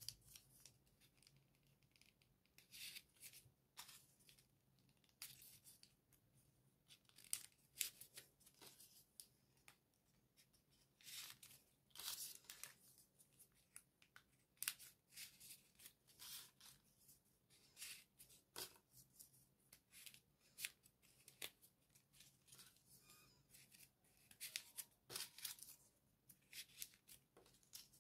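Folded paper modules of a 3D origami figure rustling and scraping as they are pushed into place one by one, in short, irregular scratchy bursts.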